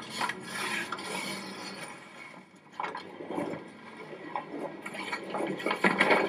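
Sound effects from a horror film's soundtrack: a run of irregular scraping and rubbing noises over a faint steady low hum, with no music.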